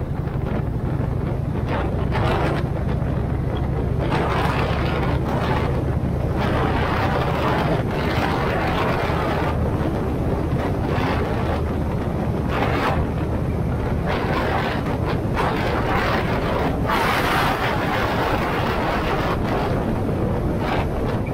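A vehicle driving at speed: a steady engine and road drone, with wind buffeting the microphone in irregular gusts.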